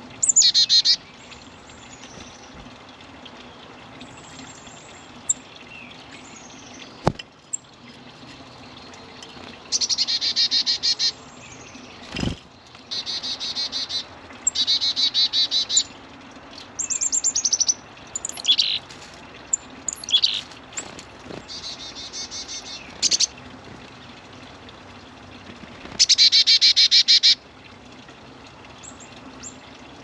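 Small songbirds calling: several short rapid trills of fast repeated high notes, each about a second long, with single high chirps between them. Two sharp clicks sound about a quarter and two fifths of the way through.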